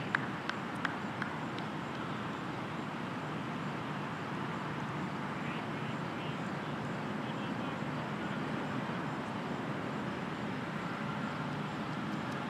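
Steady outdoor background noise, an even rush with no clear tone, with a few faint clicks in the first second or so.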